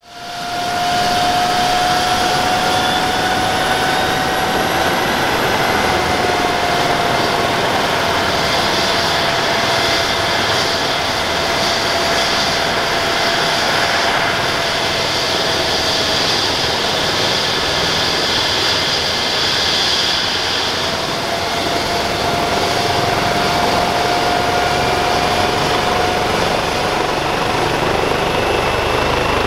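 Airbus H135 P3 helicopter's twin Pratt & Whitney PW206B3 turboshaft engines running on the ground before take-off: a steady turbine whine, wavering slightly in pitch, over a dense rushing noise. It fades in over the first second.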